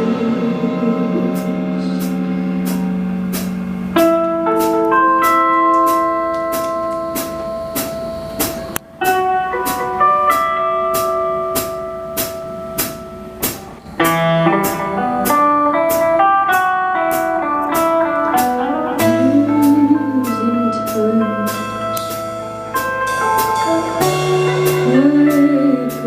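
Live band playing an instrumental passage: held guitar notes over a steady cymbal beat, with bent, wavering guitar notes over a low sustained bass in the second half.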